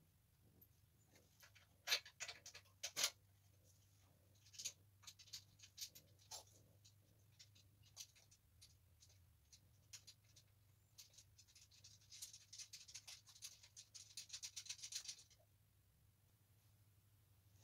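Hand tools working on the mini bike's engine mount bolts: scattered metal clinks and taps, two sharper clicks about two and three seconds in, and a run of fast wrench clicking from about twelve to fifteen seconds in as the engine is tightened down.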